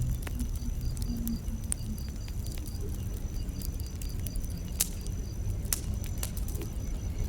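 Wood fire crackling, with irregular sharp pops and snaps over a low rumble of the flames; the loudest pop comes about five seconds in. Crickets chirp steadily in the background.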